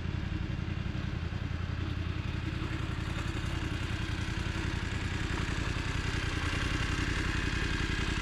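Motorcycle engine idling steadily with an even, rapid beat.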